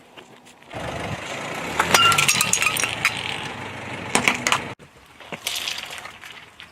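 A car rolling over objects and crushing them, with a run of cracks and clinks over tyre noise that cuts off abruptly, then a few fainter cracks.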